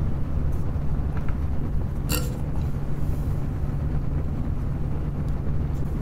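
Two pairs of Noctua NF-A14 PWM 140 mm PC fans running on USB power and being moved apart, giving a steady low fan hum with an even air whoosh. A short click sounds about two seconds in.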